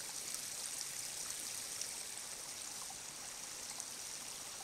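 Small forest stream running, a steady even rush of water.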